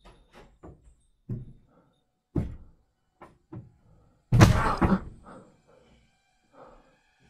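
A string of irregular knocks and thumps, then one loud bang about four and a half seconds in that rings on for about half a second, followed by a few fainter knocks.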